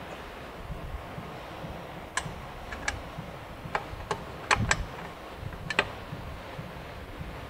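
Sharp metallic clicks and clinks, about eight, irregularly spaced and some in quick pairs, from hand tools and steel suspension parts being handled at a car's front wheel hub.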